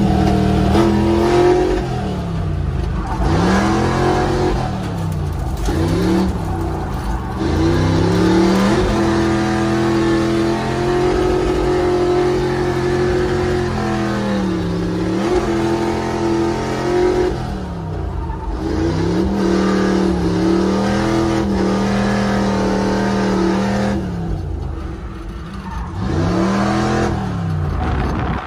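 Chevrolet C10 drift truck's engine heard from inside the cab, running at high revs under throttle. The revs drop and climb back several times through the lap.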